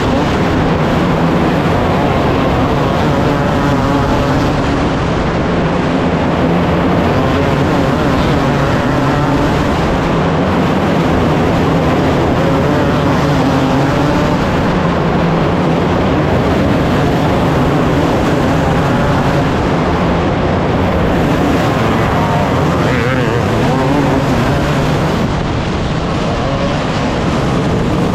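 A field of winged sprint cars racing, with several engines running hard at once. Their pitches waver and overlap as the cars pass, and one rises in pitch about three quarters of the way through.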